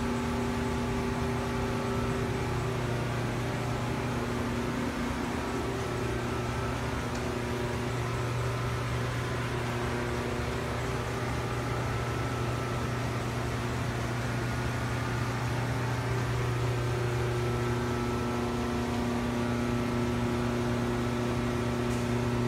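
Steady low electrical hum with a few higher overtones over a constant background hiss, from powered machine-shop equipment.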